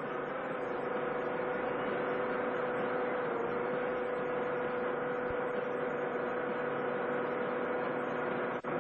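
Steady hum and hiss with a single constant mid-pitched tone, unbroken except for a brief dropout near the end.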